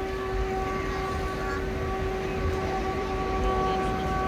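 One long note held at a single steady pitch without a break, over a murmuring crowd.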